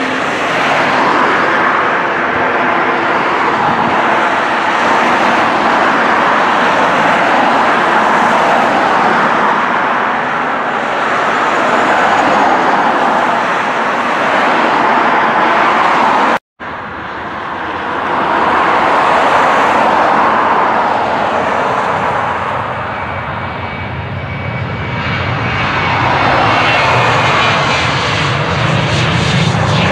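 Airliner jet engines running loud, broken by a brief dropout about halfway through. After it, a Ryanair Boeing 737-800's CFM56 turbofans at takeoff thrust: a fan whine comes in and a low rumble deepens and grows as the jet rolls down the runway.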